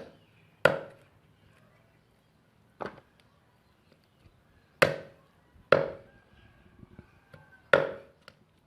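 A knife chopping through chicken: about five hard, separate chops at uneven gaps of one to two seconds.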